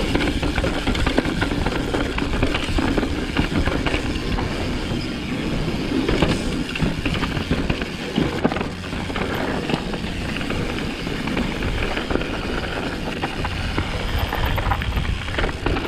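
Propain Tyee mountain bike descending a dirt and gravel downhill trail: tyres rolling over the rough ground while the chain and frame rattle continuously over the bumps, with wind rumbling on the bike-mounted microphone.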